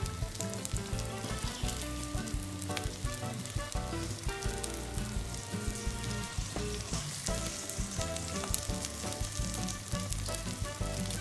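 Beef burger patties, bacon and butter-topped onion rings frying on a flat griddle: a steady sizzle with crackles and pops as the butter melts. Background music plays underneath.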